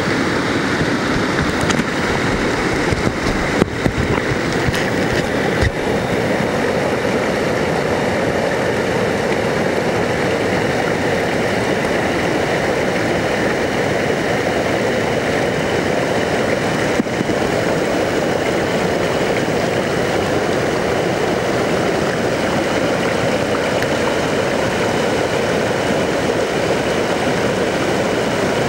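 Barron Falls in full flood: a loud, steady rush of floodwater pouring over the falls and churning through the gorge, with a few brief bumps in the first six seconds and once more midway.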